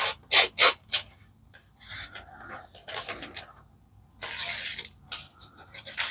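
Short scraping and rubbing sounds from a pocket knife's blade being handled and its edge tried: a few quick scrapes in the first second, fainter rubbing in the middle, and one longer scrape about four seconds in.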